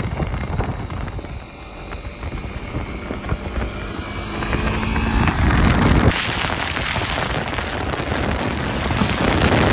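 Sport motorcycle engine running as the bike rides past, pitch rising a little as it pulls away. About six seconds in the sound cuts abruptly to loud wind and road rush, heard from a car moving alongside the bike.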